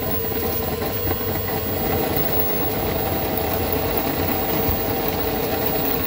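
1998 Club Car DS golf cart's rear transaxle making a loud, steady racket with rapid rattling. The owner traces most of this racket to the spline shaft between the electric drive motor and the differential.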